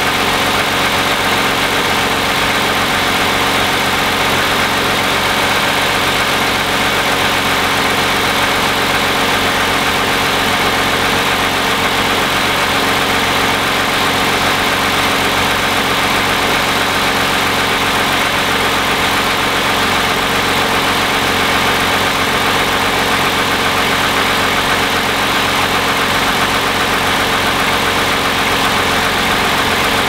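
Toyota 3.5-litre 2GR-FE V6 with about 87,000 miles on it, idling steadily. The engine note stays even throughout, with no revving.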